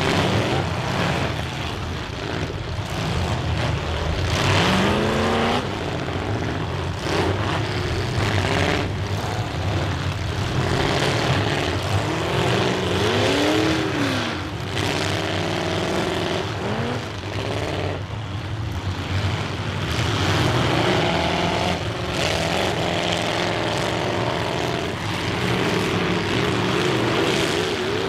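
Several demolition derby cars' engines running together and revving up and down as they drive around the dirt arena, with occasional bangs and crunches of cars ramming each other.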